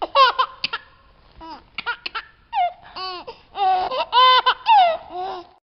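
High-pitched laughter in a string of short giggling bursts, which stops shortly before the end.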